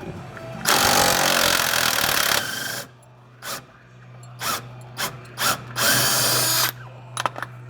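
A power tool is run on the bolt that holds the coilover fork of a Honda Civic's front suspension. It starts with a loud run of about two seconds, goes on in a few short blips, and ends with another run of about a second near the end.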